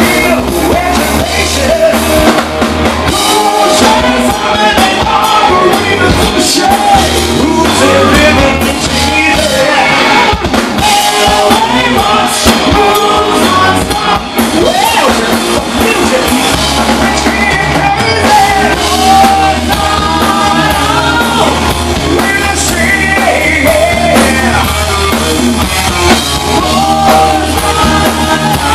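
Rock band playing live: electric guitars, bass and a drum kit, with a lead vocal singing over them.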